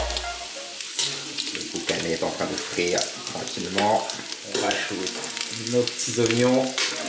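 Diced boucané, smoked pork, sizzling as it fries in its own fat in a stainless-steel pot.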